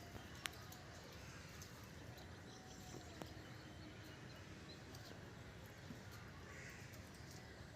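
Near silence: faint outdoor background, with a small click about half a second in and another about three seconds in.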